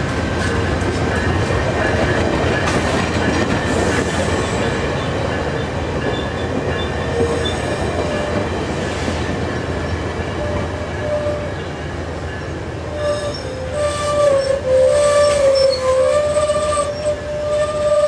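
Stainless-steel VIA Rail passenger coaches passing at speed: a steady rush and rumble of wheels on rail. From about two thirds of the way through, the wheels add a wavering high squeal.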